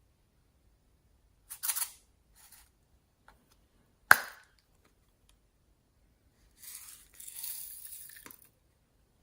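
Glossy slime mixed with floam beads and clay being worked by hand: short spells of crackly squishing, with one sharp pop about four seconds in, the loudest sound, and a longer crackly stretch near the end.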